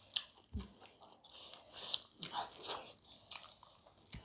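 Close-miked eating: irregular crunchy chewing and biting of chicken, in uneven bursts.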